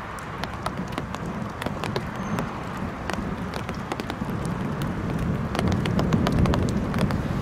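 Outdoor thunderstorm ambience: a steady hiss scattered with sharp ticks, and a low rumble that swells over the last couple of seconds.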